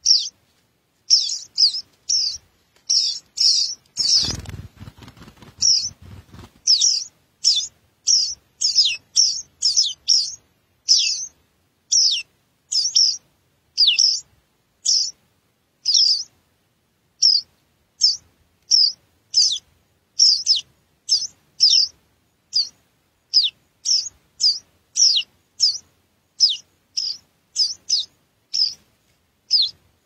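Songbird nestlings begging from the nest: short, high chirps that drop in pitch, repeated about one and a half times a second. A low rustle comes in about four seconds in and lasts a couple of seconds.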